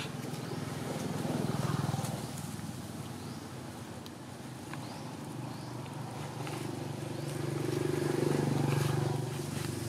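A motor engine drones steadily in the background. It grows louder about a second and a half in and again near the end.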